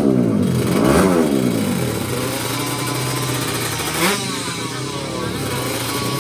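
Drag-racing motorcycle engine at the start line, revved up and down twice, then running steadily with a short sharp throttle blip about four seconds in.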